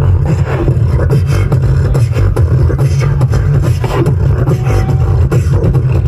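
Beatboxing: rapid vocal percussion, clicks and hits in quick succession over a heavy, continuous bass.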